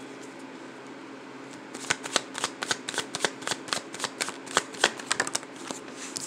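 A deck of tarot cards being shuffled by hand: after a quiet start, a quick, irregular run of card snaps and flicks, several a second, begins about two seconds in.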